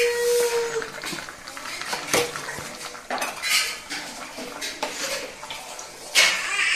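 Metal spoon stirring a thick curry in a metal cooking pot, scraping the sides and clinking against the rim several times, with the loudest clink near the end.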